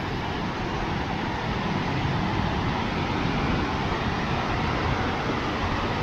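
Rapids and small waterfalls on a mountain river: a steady rush of white water over rocks, growing slightly louder.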